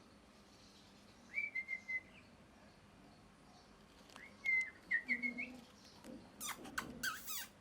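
Pet ringneck parakeet calling in short whistled chirps: a few about a second and a half in, a quicker run a little after four seconds, then harsher, raspier calls near the end.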